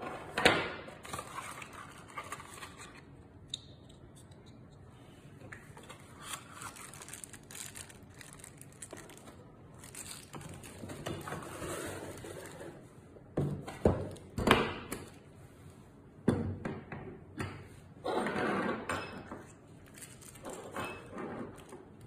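Unpacking a boxed door lever lock set by hand: cardboard box and foam insert rustling and scraping, with metal lock parts knocking and clunking down on a wooden table in several sharp hits.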